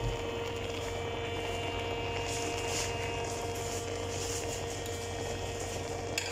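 A steady hum with several constant tones, with a few faint soft hisses over it.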